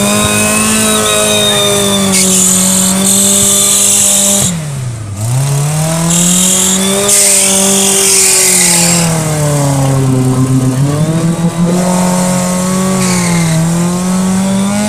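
Off-road 4x4 truck's engine held at high revs as it churns through deep mud, its pitch sagging sharply under load about five seconds in and again around ten seconds, then climbing back each time. A hiss of spinning wheels throwing mud and water rides on top in patches.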